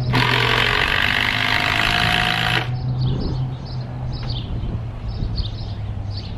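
A power drill runs in one burst of about two and a half seconds, driving a fastener into a wooden roof bracket, then stops. Its whine rises slightly near the end of the burst. Birds chirp after it stops.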